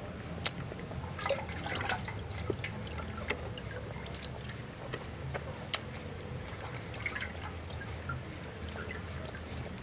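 Water dripping and trickling off wet raw chicken pieces in a steel bowl, with many small wet clicks and ticks as the pieces shift, over a steady low rumble.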